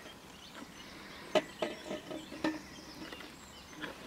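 A few sharp knocks, each with a short ring, the loudest about a second and a half in and another near two and a half seconds, from fishing tackle being handled on the angler's metal-railed platform. Faint bird chirping runs underneath.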